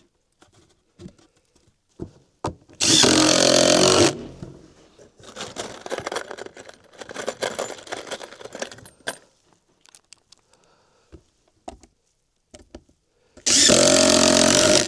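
Cordless power tool running in two steady bursts of about a second each, one a few seconds in and one near the end, with scattered knocks and rustling of lumber being handled between them. The tool's battery is one the owner thinks is at the end of its life.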